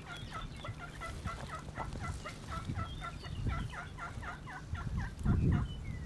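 Turkey calling: a long run of evenly spaced yelping notes, about five a second, each dipping and rising in pitch. A louder low thump comes near the end.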